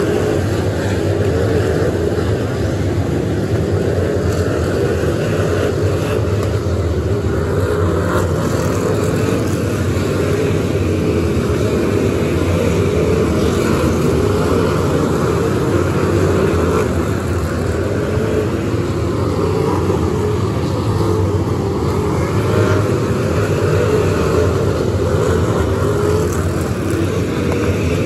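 A pack of figure-8 race cars running at race pace, their engines blending into one steady, loud drone with no letup.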